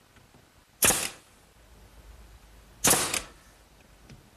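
Pneumatic finish nailer firing twice, about two seconds apart, driving finish nails into wood: each shot is a sharp crack that trails off briefly.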